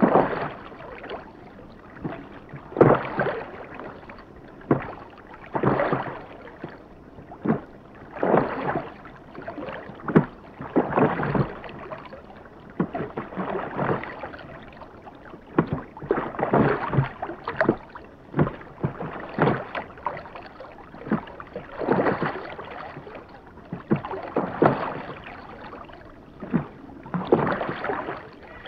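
Rowboat being rowed at a steady pace: each stroke of the oars through the water comes about once every two and three-quarter seconds, with short knocks among the strokes.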